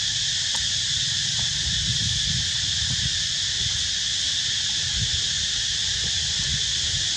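Steady, unbroken high-pitched drone of a forest insect chorus, over a low uneven rumble.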